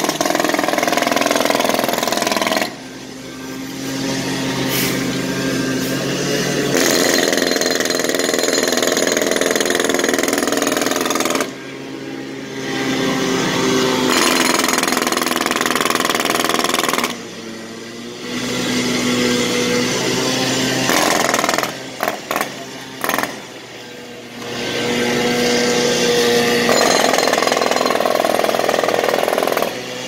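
Jackhammer breaking up street pavement. It hammers in runs of several seconds, cuts out briefly four times, and stutters on and off in a few quick bursts a little past the middle. A steady engine hum carries on through the pauses.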